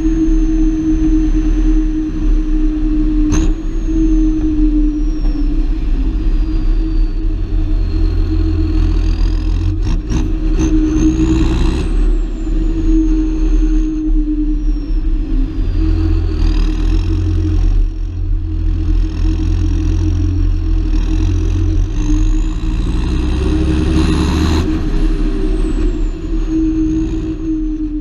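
John Deere 7530 Premium tractor's six-cylinder diesel engine running steadily while drawing a trailer of maize. A thin high whine falls and rises several times over the engine note and climbs highest shortly before the sound fades out at the very end.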